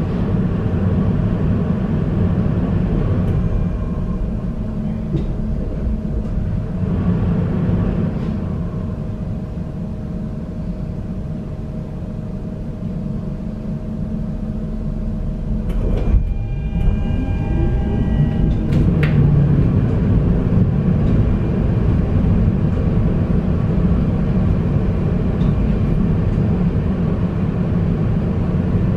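Tram running along its line, heard from on board: a steady low rumble of wheels on rail with a constant hum. About halfway through, a whine rises in pitch over a couple of seconds as the tram picks up speed.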